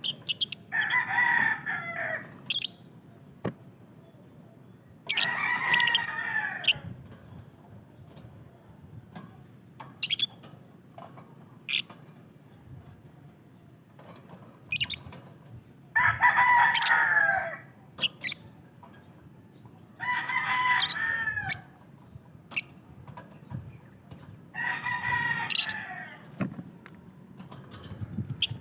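Birds calling: a long call of about a second and a half, falling in pitch at the end, repeats every four to five seconds, with short, sharp, high chirps in between.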